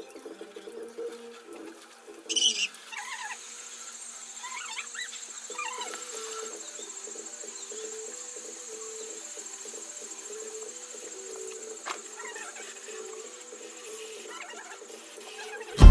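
A steady, high-pitched insect buzz starts about three seconds in, over scattered short chirps and a low wavering tone. There is a brief loud burst near the start and a sharp click at the very end.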